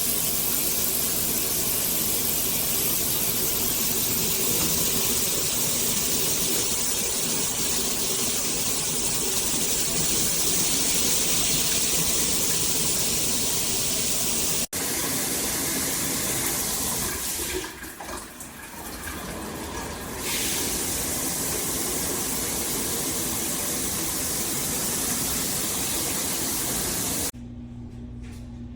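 Water spraying from a shower head, a steady loud hiss. It breaks off sharply for an instant about fifteen seconds in, thins out in the treble for a couple of seconds a little later, and stops near the end.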